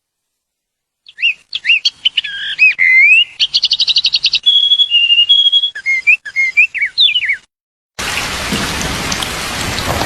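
A songbird singing a varied series of clear whistled phrases: swooping notes, a fast trill and a few held notes. About a second before the end it switches suddenly to a hissy outdoor recording with several birds chirping.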